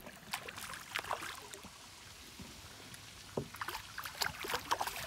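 A hooked fish thrashing and splashing at the water's surface beside a boat as it is reeled in, with a cluster of short splashes about a second in and another flurry in the last second and a half.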